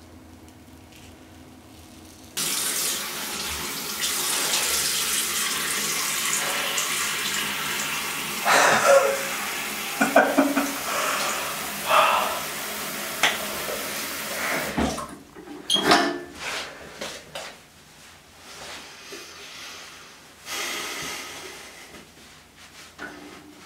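A bathroom sink tap is turned on about two seconds in and runs with splashing, as after a shave is rinsed off, then stops about halfway through. Scattered knocks and clicks follow.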